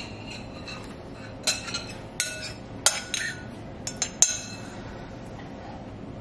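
Spoon clinking against a bowl as chicken is scooped out, about eight sharp clinks with a short ring, starting a second and a half in and stopping a little after four seconds.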